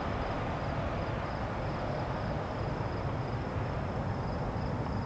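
Night-time outdoor ambience: a steady low rumble with insects chirping faintly in a regular high pulse, about three times a second.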